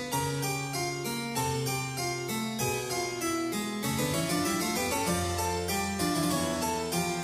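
Background music: a fast run of short, evenly spaced notes over a steady bass line.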